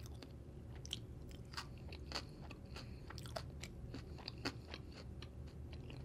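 A person chewing a mouthful of pizza, with soft, irregular mouth clicks and smacks.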